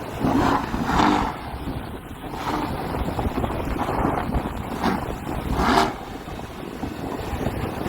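Wind buffeting the microphone over vehicle noise, with a few louder swells about a second in and near six seconds.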